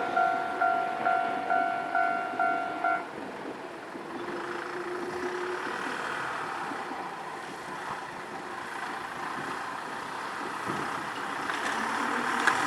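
Japanese railway level crossing warning bell ringing in quick electronic dings, about two a second, then stopping about three seconds in, as crossings do once the train has cleared. Road vehicles then run over the crossing with a steady traffic noise.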